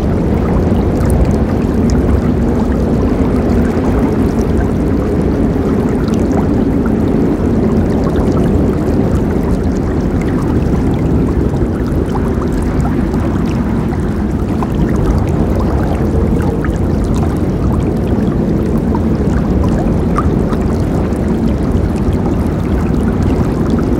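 River water flowing steadily, an even, deep rushing with faint small splashes scattered through it.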